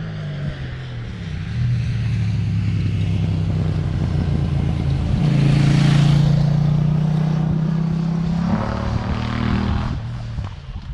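KTM 790 Duke's parallel-twin engine running under load, its note shifting in pitch a few times and loudest about six seconds in. Wind rushes over the microphone throughout.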